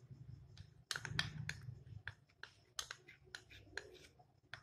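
Spoon scraping and tapping against a small bowl as thick ghee is scraped out: a quiet, irregular string of light clicks and scrapes.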